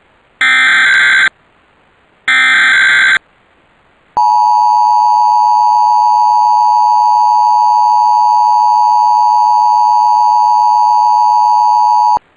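Emergency Alert System tones for a required monthly test: two bursts of SAME header data, about a second each, then the steady two-tone attention signal (853 and 960 Hz) held for about eight seconds before cutting off suddenly.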